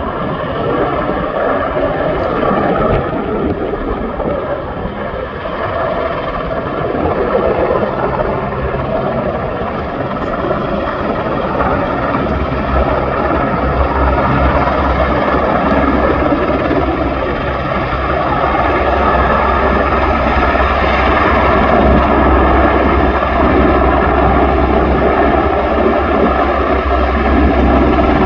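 EH101 Merlin helicopter approaching, its rotor and turbine noise growing steadily louder, with a steady high whine over it. A deep low rumble builds from about halfway through.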